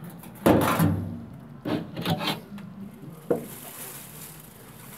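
Handling noise from working on a cheap steel grill while the phone films one-handed: a loud rub about half a second in, then a few sharp knocks and scrapes.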